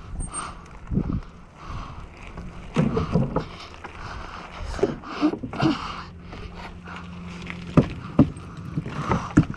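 Mountain bike riding with wind rushing over the microphone, tyres rolling and the bike rattling over pavement and dirt, with a few sharp knocks near the end.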